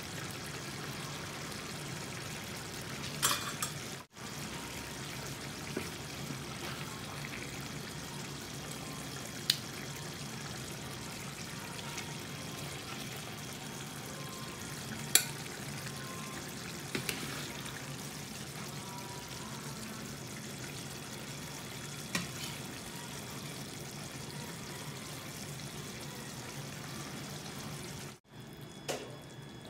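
Masala curry sauce simmering in a frying pan, giving a steady bubbling hiss, with a few sharp clicks of a metal ladle against the pan.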